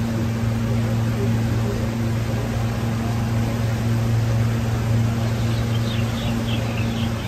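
A steady low mechanical hum over constant noise, unchanging throughout, with a few faint high chirps near the end.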